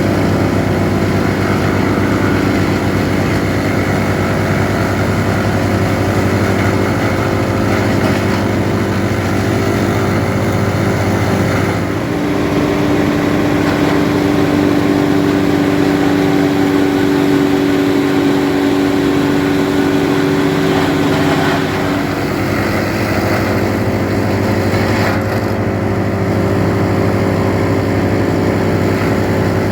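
Tractor-driven PTO drum wood chipper running steadily while chipping date palm fronds, the tractor engine and spinning drum in one continuous machine noise. Its note shifts about twelve seconds in and shifts back about ten seconds later, as the load on the machine changes.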